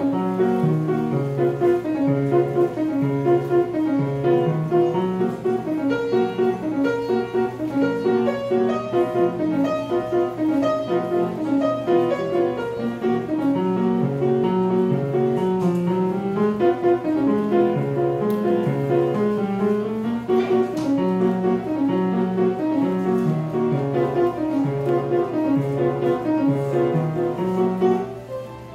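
Grand piano being played solo: a piece with a repeating low bass pattern under a higher melody, the notes struck in a steady rhythm. The playing stops about a second before the end, the last notes ringing out.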